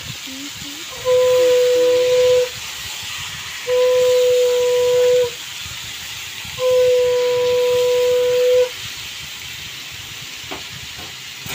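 Raw mutton sizzling in hot oil in a pan, a steady hiss. Over it come three loud, steady whistle-like tones of one and a half to two seconds each, with short gaps between them, and a few light clicks near the end.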